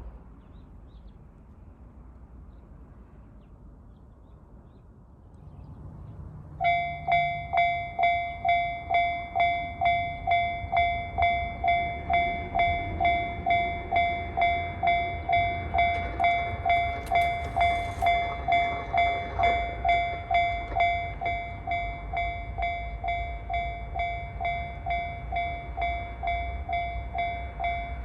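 Japanese level crossing alarm (JR-type electronic tone) starting about six seconds in and ringing in even dings about twice a second. It turns quieter about two-thirds of the way through, as this alarm does once all the barriers are down.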